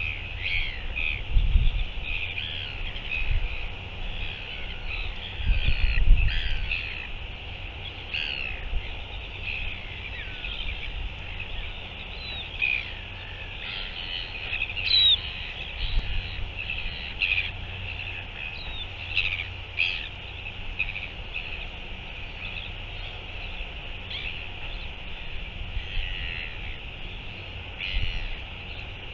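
Gulls calling over and over in short, harsh calls and slides, with wind rumbling on the microphone in gusts about a second and a half and six seconds in.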